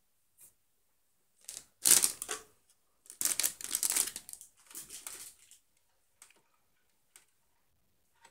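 Hard objects clicking and rattling as they are handled, in two bursts of rapid clatter: a short loud one about two seconds in and a longer one from about three to five and a half seconds, with a few single ticks before and after.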